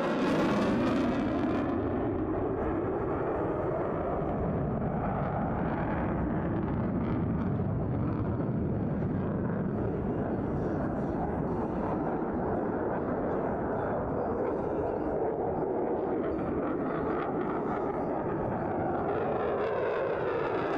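F-22 Raptor's twin Pratt & Whitney F119 turbofans in afterburner, a loud continuous jet noise. A hollow sweeping tone falls at the start as the jet passes and rises again near the end as it comes back around.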